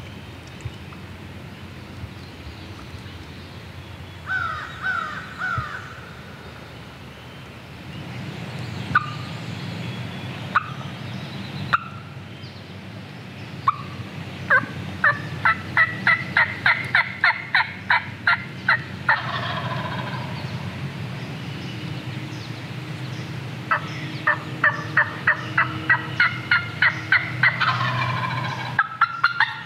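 Wild turkey calling close by: a few short falling calls, then scattered single notes, then two long runs of rapid, evenly spaced loud notes, about five or six a second, lasting several seconds each, with gobbling.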